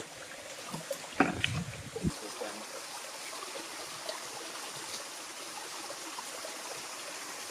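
Small waterfall trickling steadily into a pool. About a second in, a brief burst of rustling and knocks.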